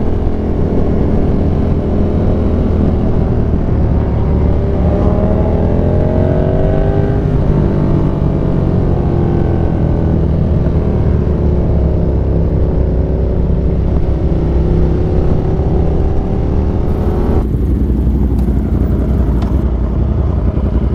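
Yamaha R1M's crossplane inline-four engine under way, its pitch climbing and resetting several times as it pulls through the gears, over steady wind rush. About three seconds from the end the engine note drops back sharply.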